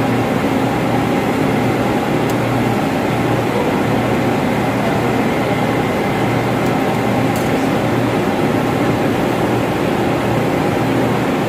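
Steady, loud drone of running ventilation machinery, an even hum with no change in pitch. Two faint short clicks about two and seven seconds in, likely from the wire-stripping pliers.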